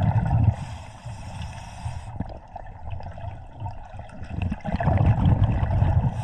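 Scuba diver breathing through a regulator underwater: a steady hiss of inhaling from about half a second to two seconds in, then the low bubbling of exhaled air rising around the camera.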